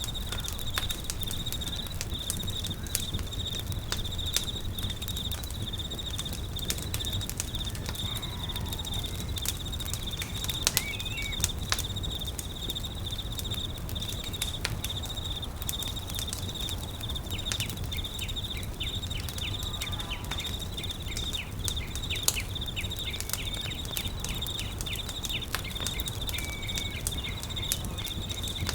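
Campfire crackling with frequent sharp pops over a low rumble, against a steady high-pitched trill of insects. A few short bird calls sound now and then.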